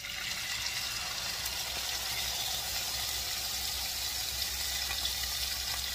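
Corn cut off the cob dropped into hot bacon drippings in a skillet, frying with a steady sizzle that comes on all at once.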